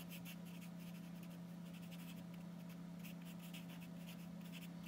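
Charcoal stick scratching lightly on paper in short, repeated strokes as small tree shapes and branches are drawn. It is faint, over a steady low hum.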